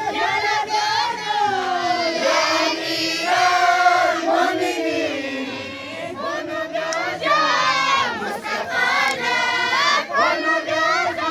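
A crowd of voices singing together in a group chant, several voices at once and continuous.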